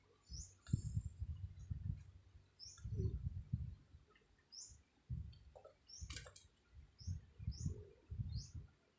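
A small bird chirping in short, high, rising notes, about eight times, over a low rumbling noise that swells and drops away every second or so.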